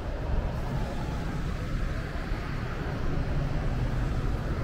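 Steady low rumble of city traffic, street ambience with no single sound standing out.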